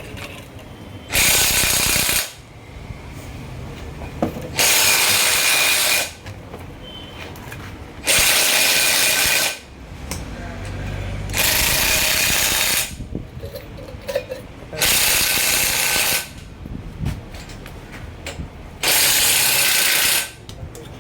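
A power tool run in six short bursts of about a second and a half each, roughly every three to four seconds, while the second pinion bearing of a truck differential is being seated.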